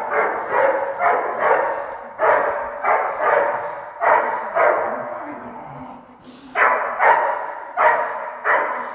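A dog barking over and over, about two barks a second, with a break of about a second just past the middle before the barking resumes.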